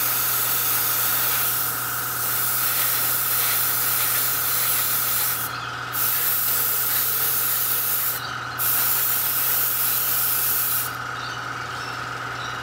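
Airbrush spraying paint in a steady hiss, applying another coat to small model parts. The spray cuts out briefly twice as the trigger is released, then stops about eleven seconds in.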